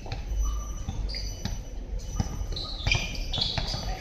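A basketball bouncing repeatedly as it is dribbled on an outdoor court, a series of separate thuds. Short high squeaks come in during the second half.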